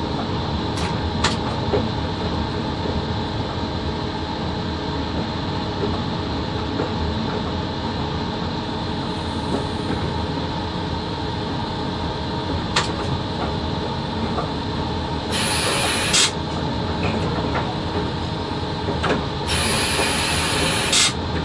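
A VL80 electric locomotive running with a freight train, heard inside its cab: a steady hum and rumble with a few sharp clicks. About fifteen seconds in there is a short burst of hissing, and a longer one comes near the end.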